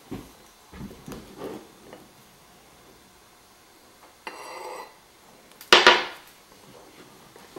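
Kitchen clatter: a few light knocks and clunks of utensils or dishes, a brief scraping rasp, then one louder sharp clatter near the end.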